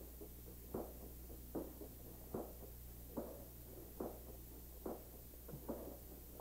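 Slow, evenly spaced knocks of walking on a hard floor, a little more than one a second, over a steady low hum.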